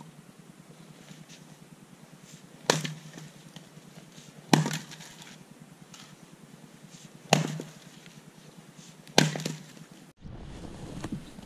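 Axe splitting firewood rounds on a chopping block: four sharp cracking strikes a couple of seconds apart, each followed by a short clatter. About ten seconds in, the sound cuts to a low, steady rumble like wind on the microphone.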